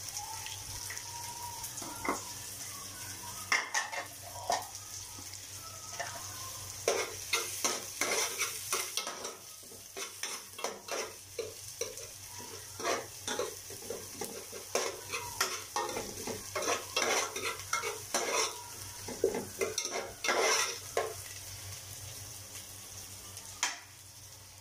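Chopped onion, garlic, ginger and chili sizzling steadily in hot oil in a metal pot, with a spoon scraping and knocking against the pot in irregular bursts as they are stirred.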